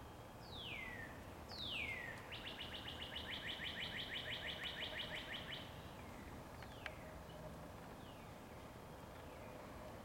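A songbird singing. It gives two clear whistles that slide down in pitch, then a rapid run of short repeated notes lasting about three seconds. Fainter down-slurred whistles follow later.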